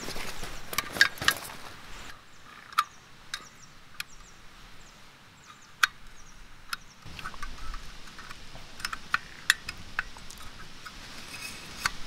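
Sharp metallic clicks and ticks of a compact folding butane camping stove being handled, its pot-support arms swung open and snapped into place. The clicks come singly or in quick clusters, every second or so.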